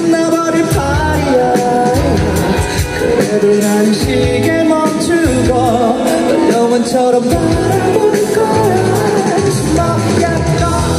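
Live rock band performance: a male vocalist singing into a microphone over electric guitar and a full band with drums.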